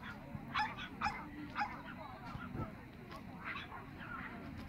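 Small dogs yapping: three sharp high yaps about half a second apart in the first two seconds, then a few fainter ones, over a steady background murmur.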